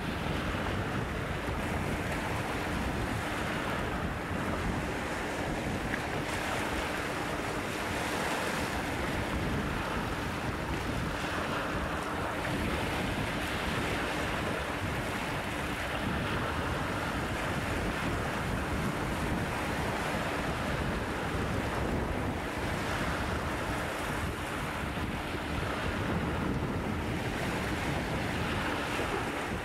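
Small waves washing in over rocks and pebbles on a stony shore, the surf swelling and easing every few seconds, with wind buffeting the microphone.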